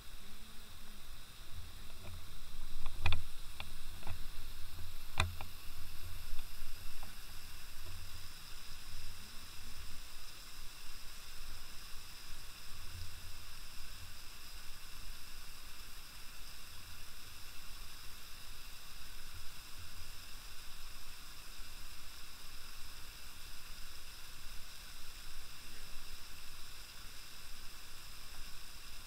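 Steady hiss, with a few sharp knocks about three and five seconds in and scattered low thumps through the first half.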